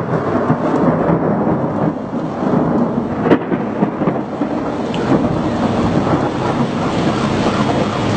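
Thunder rumbling on, loud and continuous, with a single sharp crack about three seconds in.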